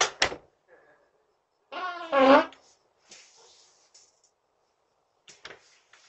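A fart picked up by a Ring doorbell's microphone: one buzzy, wavering, pitched blast lasting under a second, about two seconds in. A few sharp clicks come at the start and again near the end.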